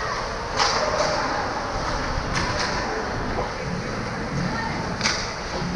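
Ice hockey play on rink ice: skates scraping and several sharp clacks of sticks and puck, about five in all, over a steady wash of distant voices.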